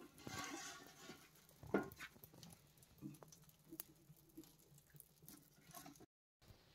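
Firewood being fed by hand into the open firebox of a small wood-burning cookstove: a rustle at first, one sharp loud knock a little under two seconds in as wood strikes the stove, then a scatter of light clicks and knocks.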